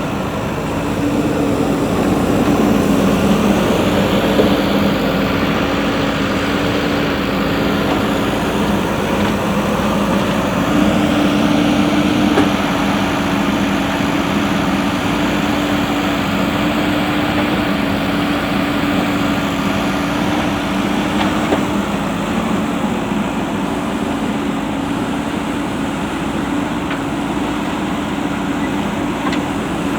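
JCB 3DX backhoe loader's diesel engine running steadily. Its pitch rises a little about a third of the way in and drops back about two-thirds through.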